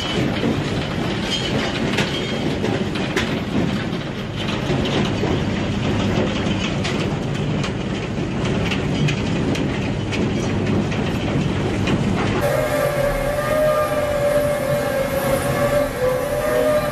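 Heavy machinery rumbling with scattered clanks and clatter. About twelve seconds in it cuts abruptly to a steady, sustained hooting tone with overtones.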